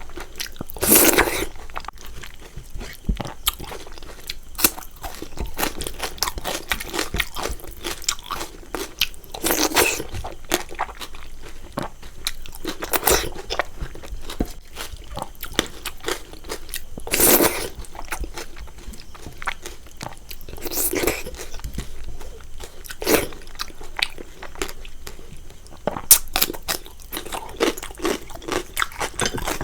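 A person eating close to the microphone: steady chewing with many small crunching clicks, and a louder crunching bite every few seconds.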